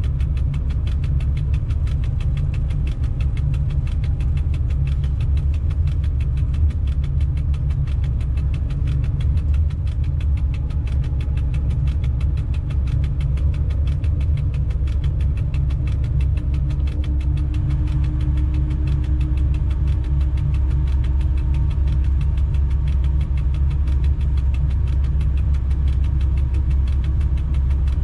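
Steady low rumble inside the cab of an electric locomotive hauling a freight train on the move, with faint whining tones that climb slowly in pitch in the second half.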